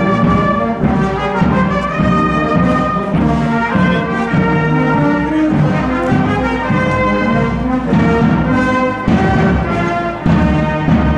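A marching brass band playing a march, a full ensemble of brass instruments sounding together as they walk.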